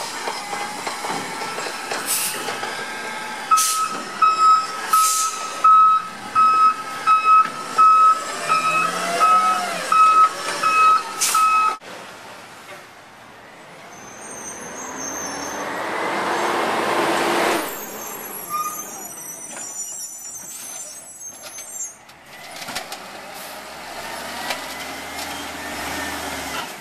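Garbage trucks at work. A truck's reversing beeper sounds about one and a half times a second for several seconds, among a few sharp clanks. Then comes a long hiss of air brakes that swells and stops, followed by quieter truck noise.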